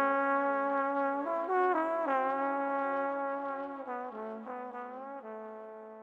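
Background music: a solo brass melody moving through several notes and ending on a long held note that fades out near the end.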